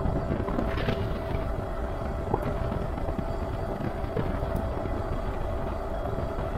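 Super73 S2 electric bike's rear hub motor whining steadily at a constant pitch while under way, over a steady low rumble of wind and road noise.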